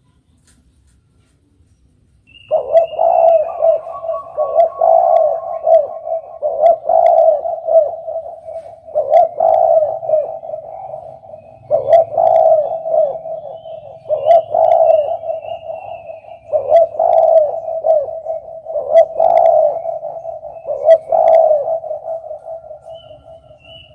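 Spotted dove (derkuku) cooing over and over, starting about two and a half seconds in: low, mellow cooing phrases repeated roughly every two seconds.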